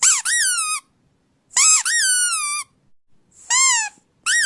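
A squeaky toy squeezed repeatedly: four loud, high-pitched squeaks, each rising and then falling in pitch, with short gaps between them; the last begins near the end.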